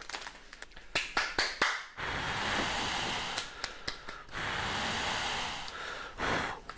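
A man blowing hard onto his wet hands to dry them, in two long, steady breaths that start about two seconds in. A few light knocks and clicks come first.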